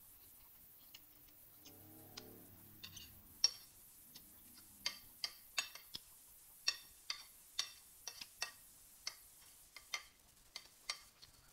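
Metal spoon clinking and scraping against a ceramic plate: a run of sharp, light clinks, about one or two a second, starting about three seconds in.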